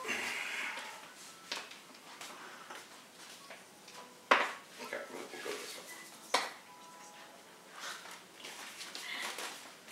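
Quiet handling of greeting cards and envelopes at a table, with two sharp knocks about four and six seconds in.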